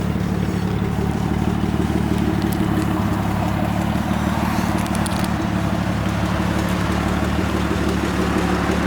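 Jeep Cherokee XJ engine idling with a steady low exhaust rumble. This is the exhaust the owner says needs fixing, and which he says has been backfiring, before a Cherry Bomb muffler goes on.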